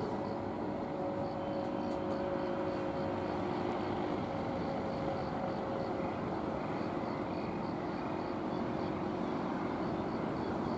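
Freight train wagons rolling past, a steady rumble of steel wheels on the rails as the train slows through a curve, with faint steady tones that die away about four seconds in.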